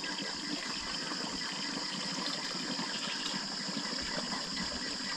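Steady rush of running water, an even flow with no breaks, over a constant high-pitched hiss.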